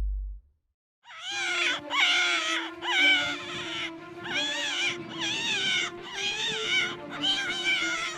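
An animal's calls: a series of about eight drawn-out, wavering cries starting about a second in, with a steady low tone underneath.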